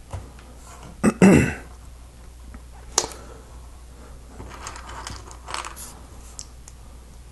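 Lego plastic bricks being handled during a build: a sharp click about a second in, then a short louder noise, another sharp click around three seconds in, and soft rustling and ticking of loose pieces later on.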